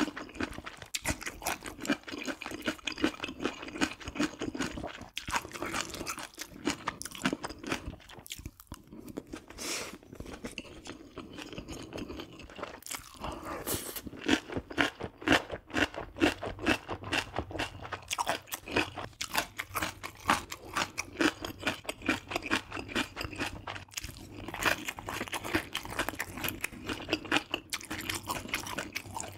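A person chewing and biting food close to the microphone: a long run of quick crunching clicks, with a short lull about a third of the way in.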